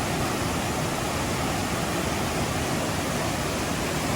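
Steady, unbroken rushing noise of running water.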